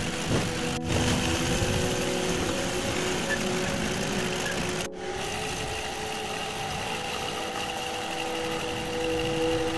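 Milling machine cutting into an aluminium engine block with an end mill: a steady machining noise with a humming motor tone. The sound cuts out abruptly twice, about a second in and about five seconds in, and the tones shift after the second break.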